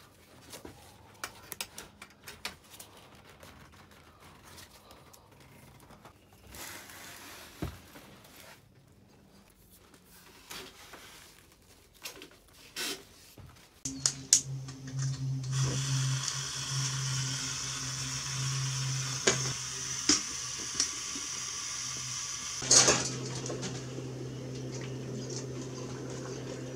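Faint clicks and rustling of tent fabric and a strap buckle being handled. About halfway in, a single-burner camp stove starts hissing steadily with a low hum beneath. A sharp loud click comes a few seconds before the end, after which the high hiss drops and the burner runs with a steadier, lower sound.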